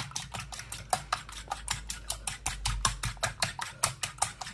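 Fork beating eggs in a china bowl, its tines clicking rapidly and evenly against the bowl at about seven taps a second.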